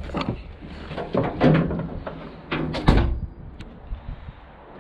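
Irregular knocks and clunks of hard objects being handled, the loudest a sharp heavy knock about three seconds in.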